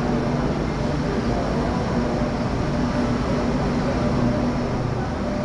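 Electric light rail train pulling slowly into a station: a steady running rumble with a low hum through it.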